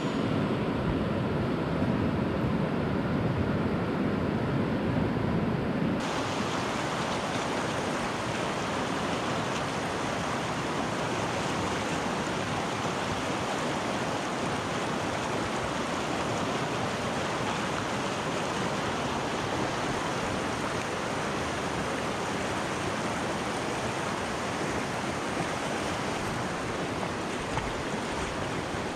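Hill stream rushing steadily, an even wash of water noise. For the first six seconds a lower, rumbling noise takes its place, then cuts off suddenly.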